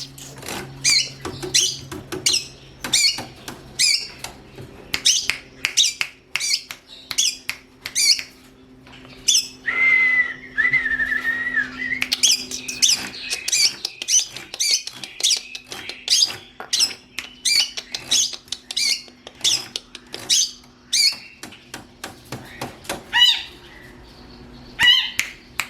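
Long-tailed shrike (cendet) calling: a fast run of sharp, falling notes, about three a second, broken in the middle by a longer harsh note.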